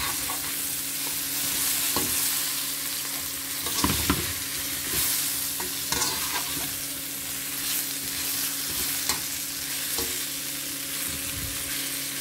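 Shrimp sizzling in a little oil in a metal pan as a wire spider skimmer tosses them, its scrapes and taps against the pan coming every second or two.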